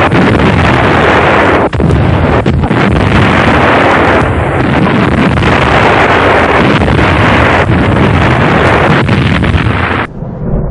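Loud, continuous rumbling roar of heavy artillery fire on an old film soundtrack, with no separate shots standing out. The roar drops and thins near the end.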